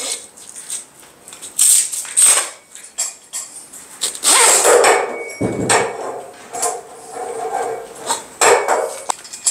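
Nylon webbing straps being threaded and pulled through small scuba weight pockets, rustling and scraping, with repeated sharp knocks and clatter of the metal harness hardware against a table.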